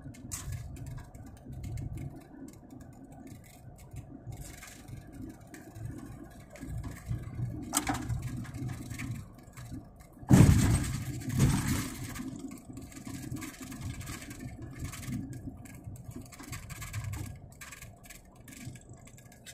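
Car driving on a rough dirt track, heard from inside the cabin: an uneven low engine and road rumble, with one loud thump a little past halfway as the car jolts over the ruts.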